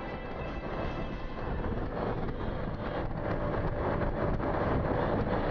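Motorcycle riding at speed, its engine running under heavy wind rush on the camera microphone, slowly growing louder.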